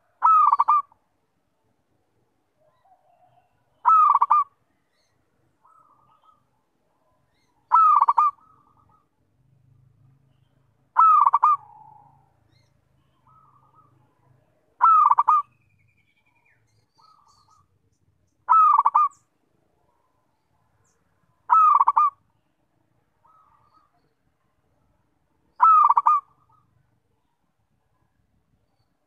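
Zebra dove (perkutut) cooing: a short rippling phrase of coos repeated eight times, evenly about every three and a half to four seconds, with fainter short bird notes in between.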